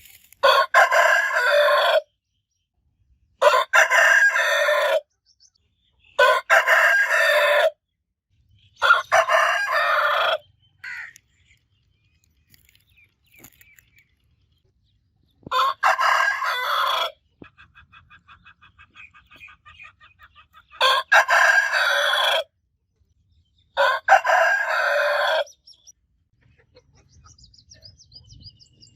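Rooster crowing seven times, each crow about a second and a half long, with a longer pause between the fourth and fifth. A faint run of rapid clucks comes between the fifth and sixth crows.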